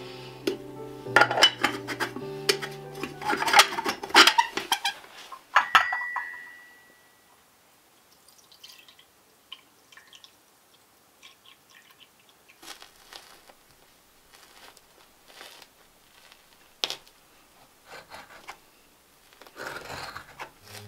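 Background music for about the first six seconds, ending with a single ringing clink. After that come faint clinks and taps of china and cutlery, and a soft scraping near the end as a knife cuts into the meringue-topped cake.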